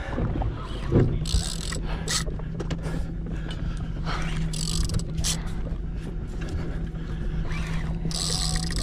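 A small boat's single outboard engine running at a steady pitch. Its hum sets in about a second in, under a low rumble and several short bursts of hiss.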